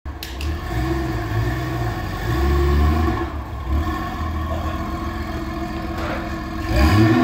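Honda Goldwing GL1500's flat-six engine running at low speed as the heavy touring motorcycle is ridden slowly, its pitch rising and falling with small throttle openings, louder about two and a half seconds in and again near the end.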